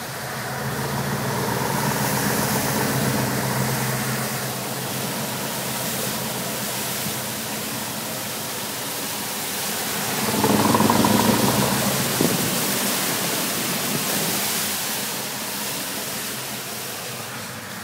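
A V8 car engine with side pipes running over a steady rushing hiss. The engine swells louder for a couple of seconds about ten seconds in, then drops back.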